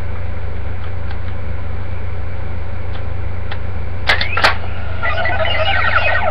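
Power Rangers Megaforce Gosei Morpher toy: two sharp plastic clicks about four seconds in, with a short rising electronic tone, then the toy's electronic sound effect playing from its small speaker as a power card is inserted. A steady low electrical hum runs underneath.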